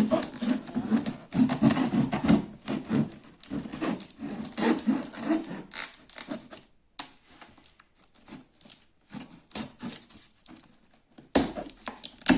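Cardboard box and packaging being opened and handled: irregular rubbing, scraping and knocks, with a louder knock near the end.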